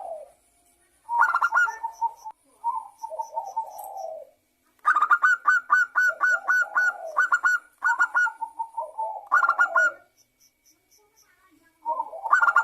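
Zebra dove (perkutut) singing: bouts of quick staccato coos dropping into lower rolling trills, with a long run of repeated phrases in the middle and a last bout near the end.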